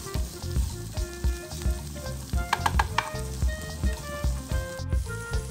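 Sliced onions, green chillies and capsicum frying in oil in a nonstick pan, sizzling as a wooden spatula stirs them, with repeated scrapes and knocks of the spatula against the pan.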